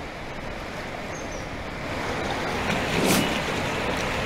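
A steady rushing noise that gets a little louder about two seconds in, with one short, louder whoosh about three seconds in.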